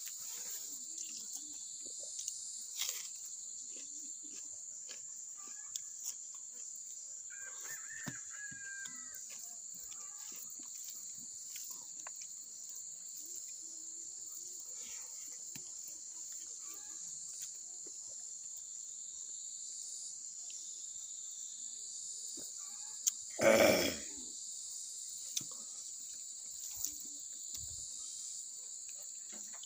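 Steady high-pitched chorus of insects droning, with faint scattered clicks of hand-eating and chewing. About 23 seconds in there is one short, louder sound.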